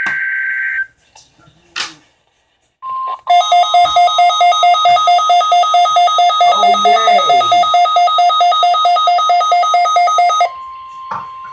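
A buzzy high tone cuts off under a second in. About three seconds in, the NOAA Weather Radio warning alarm tone starts, a steady high tone. Half a second later a loud electronic alarm begins beeping about three times a second over it for some seven seconds, then stops, leaving the steady tone on its own near the end.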